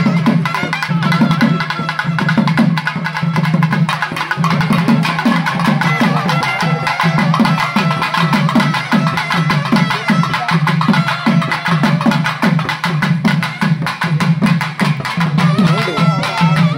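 Traditional festival music led by drums: a steady, driving drum beat of about two strokes a second, with other percussion and instruments above it.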